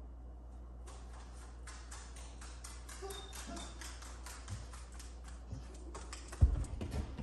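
A German shorthaired pointer's claws clicking on a hard floor as she walks across the room, about four or five clicks a second, with a loud thump near the end as she jumps up onto the sofa.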